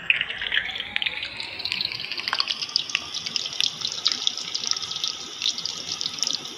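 Hot oil sizzling and crackling around stuffed bitter gourds (karela) frying in a wok: a dense, steady hiss full of small pops.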